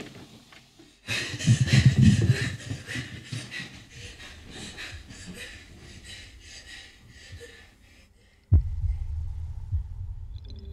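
Hard, frightened breathing mixed with the rustle of bedsheets, loud at first and fading over several seconds. At about eight and a half seconds a sudden low boom breaks in and gives way to a low, pulsing, heartbeat-like rumble.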